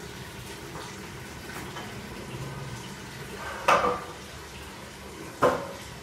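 Lovebird feeding from a plastic bowl of soft food: two short clattering knocks, about two seconds apart near the end, as its beak strikes the bowl and food, over a steady low background hum.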